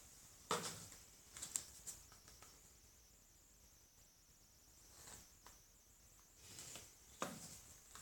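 Mostly quiet, with a few light taps and clicks of plastic paint cups and a wooden stir stick being handled and set down on plastic sheeting, about four in all, with a faint steady high hiss underneath.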